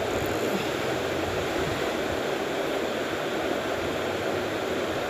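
Steady rushing background noise, even in level throughout, with no distinct sounds standing out from it.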